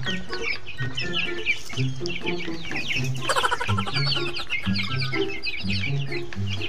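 A flock of young chickens peeping and cheeping all together, many short falling peeps overlapping, over background music with an evenly repeating low bass pattern.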